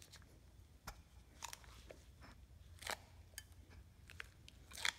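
A handful of faint clicks and light scrapes, the loudest near the end, as a Bridgeport mill variable-speed pulley disc is slid by hand onto its freshly fitted, moly-lubed bushings.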